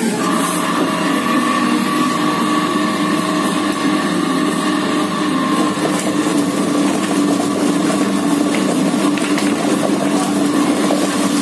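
Chicken feather plucking machine running, with a steady motor hum.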